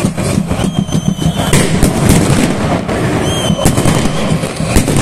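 Firecrackers and pyrotechnics going off in a packed stand: many sharp bangs in quick succession over a loud crowd din, with two short high whistles.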